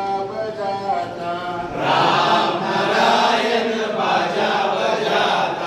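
A man's voice sings a line of a camp action song alone, then about two seconds in a group of men joins in loudly, chanting the song together.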